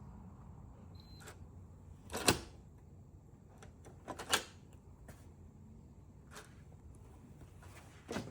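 A few sharp, irregular clicks and knocks from handling a door and its keypad deadbolt lock. The loudest comes about two seconds in and a quick double knock about four seconds in.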